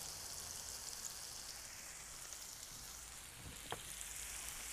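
Sliced onion and garlic sizzling gently in olive oil in a frying pan, soft-frying over low heat. A single light knock comes about three-quarters of the way through.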